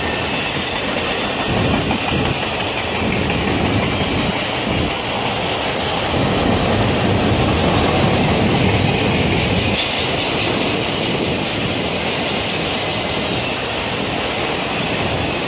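Freight train of autorack cars rolling past: a steady rumble of steel wheels on the rails, with clacks over the rail joints, a little louder about halfway through.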